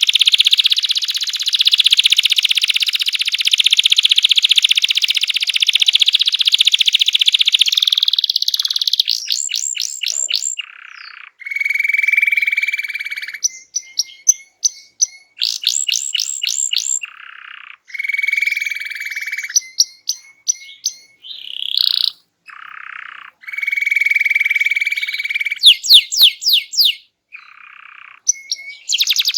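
Domestic canary singing hard. It opens with a dense rapid trill of about eight seconds, then moves into phrases of fast sweeping notes, rolling trills and held whistled notes, broken by short pauses. The loudest sweeps come near the end.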